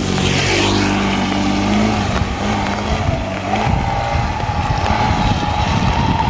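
A motor vehicle's engine running close by with a steady hum. About three and a half seconds in it gives way to a rougher rumble with a faint rising whine.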